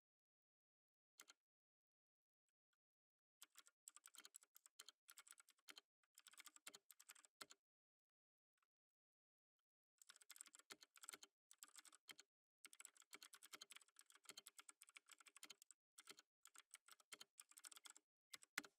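Soft typing on a computer keyboard: quick runs of key clicks from about three and a half to seven and a half seconds in, and a longer run from about ten seconds in, ending in one sharper keystroke.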